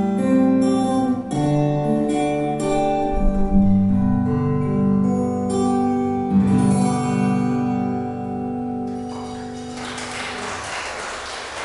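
Two steel-string acoustic guitars playing an instrumental duet, with picked melody over strummed chords. The piece ends about nine seconds in on a final chord left to ring, and an audience starts clapping.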